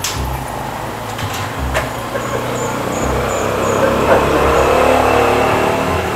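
A motor vehicle running, its sound swelling to a peak about four seconds in and then easing off, with a sharp click at the start and another near two seconds in.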